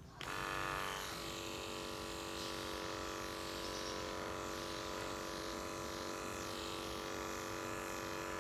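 Andis two-speed electric pet clipper with a No. 10 blade switching on and running with a steady, even buzz while it shaves a Persian cat's long fur.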